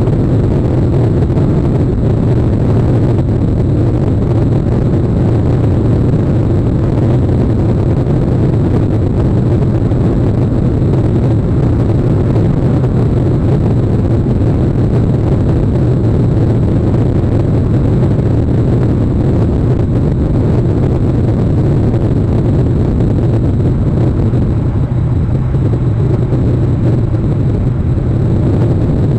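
Steady low rumbling noise with a hiss above it, unchanging throughout.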